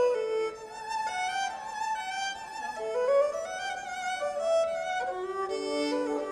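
Music led by a violin melody, with other notes sounding together beneath it.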